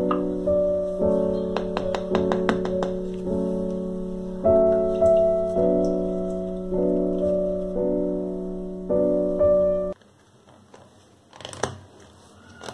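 Piano background music with held chords, which cuts off suddenly about ten seconds in. After it come a few faint clicks of a plastic lid being pressed onto a plastic food container.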